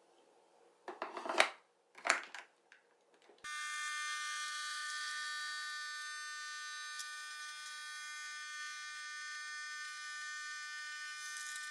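A few knocks and clicks as the capsule holder is slid into a Nescafé Dolce Gusto capsule coffee machine. Then, about three and a half seconds in, the machine's pump starts a steady, high-pitched buzzing whine while it brews an Americano into a glass of ice.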